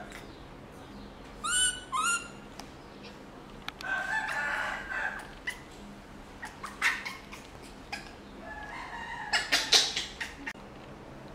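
A baby macaque giving short, high squeaking calls, two in quick succession about a second and a half in, then a longer call about four seconds in and a cluster of loud sharp sounds near the end.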